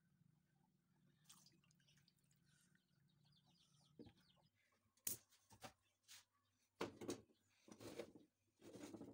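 Clay tagine being handled: a few light knocks as the conical clay lid is set on the base, then three short scraping bursts as the covered dish is moved onto the gas stove's grate.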